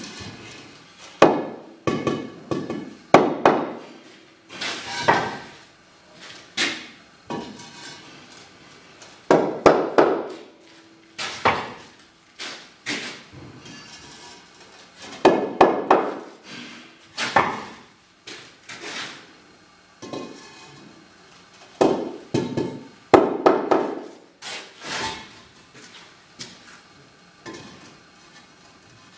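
Block-laying work: Porotherm hollow clay blocks being set down and knocked into place, giving irregular hard knocks, clunks and short scrapes of blocks and tools.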